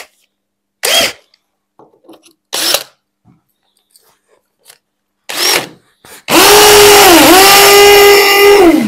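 Cordless combi drill with a masonry bit: three short trigger blips, then about three seconds of continuous drilling into a tiled block wall, the motor's pitch sagging twice as the bit bites.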